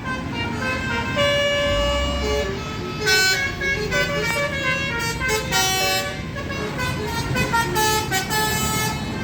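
Bus 'telolet' horn, a multi-tone air horn, playing a quick tune of short notes that step up and down in pitch, with bus engines running underneath.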